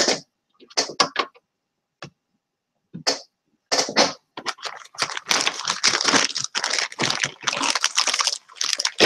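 Clear plastic bag crinkling as hands open it and rummage through small laser-cut parts inside, dense and continuous from about halfway through, after a few short separate rustles and knocks.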